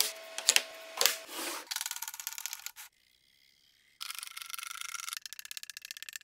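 Wooden blocks and strips being handled and slid against each other on a workbench, heard in short edited clips. There are two sharp clacks in the first second, then stretches of rapid scraping and rubbing that start and stop abruptly, with a brief near-silent gap in the middle.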